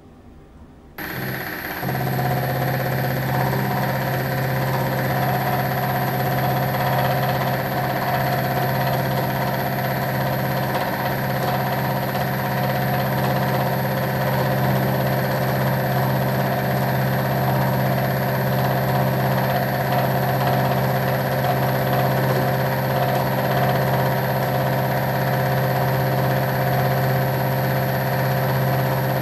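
Milling machine starting up suddenly about a second in, then running steadily with a strong low hum, several steady tones and a high whine, as its end mill cuts an aluminium block turned by hand on a rotary table.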